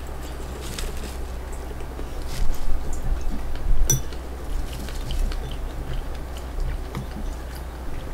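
Scattered light clicks and taps of dishes and utensils being handled, with one sharper click about four seconds in, over a low steady hum.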